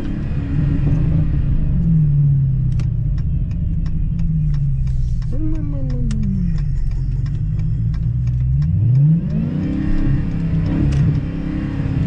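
Dodge Challenger Hellcat's supercharged 6.2-litre V8, on its stock air intake, pulling through the gears under acceleration. The engine note falls just after the start, rises and drops sharply about five seconds in, then climbs again after about nine seconds and holds high. A run of sharp ticks comes through the middle stretch.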